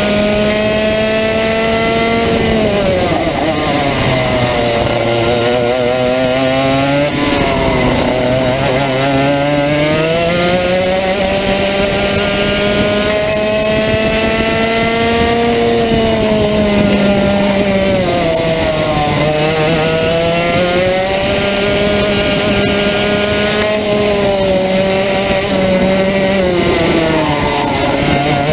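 Rotax Max 125cc two-stroke kart engine at racing revs, heard onboard. Its pitch drops as the driver lifts off for corners and climbs in long pulls on the straights: down about two seconds in, a long climb from about seven seconds, then down and up twice more.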